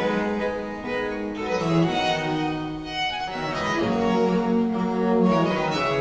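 Baroque chamber ensemble on period instruments playing: violins, cello and violone bowing sustained, overlapping lines over a continuo of theorbo and harpsichord.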